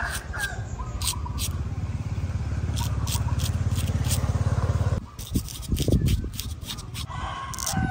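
Straight razor scraping through short stubble on the chin and neck in short, crisp strokes. A low steady engine rumble runs underneath and cuts off abruptly about five seconds in, and birds chirp briefly.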